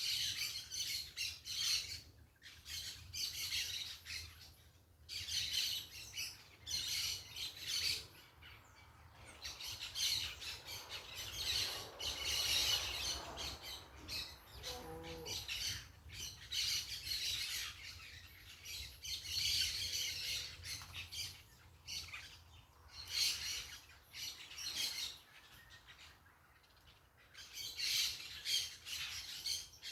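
Parakeets squawking and chattering in harsh, repeated bursts with short pauses between them.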